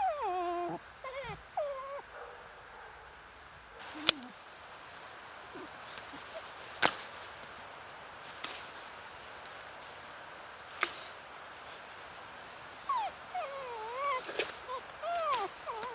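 Small dog whining: short, wavering high whines in the first couple of seconds and again through the last few seconds. A few sharp clicks fall in the quieter middle stretch.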